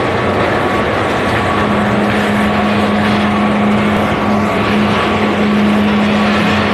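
Loud, steady machinery noise of a mill's small-bag packing line: a constant din with a low hum and a thin higher whine running under it.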